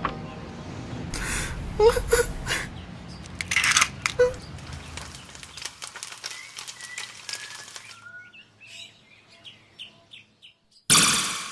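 A series of short, varied sound effects: noisy bursts and brief chirps and clicks, thinning out to near quiet, then a sudden loud burst near the end.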